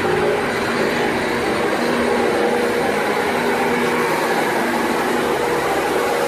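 Milling machine running steadily: a constant mechanical hum with a few steady tones.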